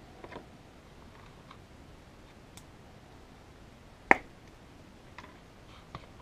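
Small parts and tools handled on a workbench while working on an HO slot car chassis: a few faint clicks and taps, with one sharp click about four seconds in.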